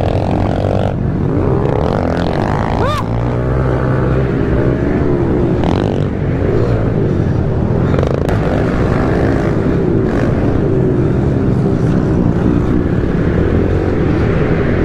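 Pit bike engines revving and running hard, the rider's own bike closest with several others around it; the pitch rises and falls with the throttle, with a quick rising rev from a passing bike about three seconds in.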